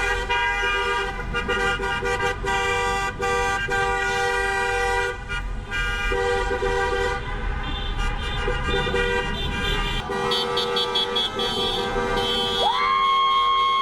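Vehicle horns honking together in long, overlapping blasts, held for seconds at a time with short breaks. Near the end a higher-pitched horn slides up and holds.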